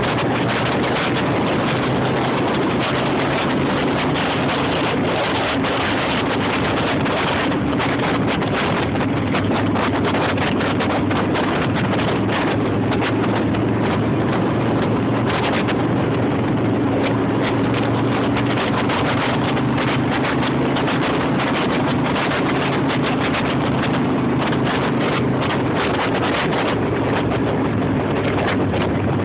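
Wind buffeting the microphone of a moving road vehicle, over the steady drone of its engine at an even pitch.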